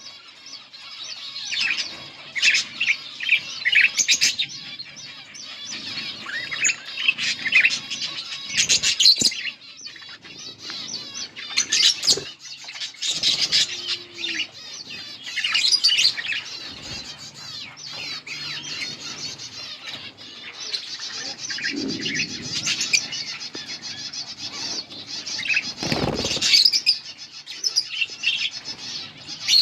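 Pair of budgerigars chattering and warbling without a break, with sharper chirps scattered through, and a few brief rustles or knocks, the loudest near the end.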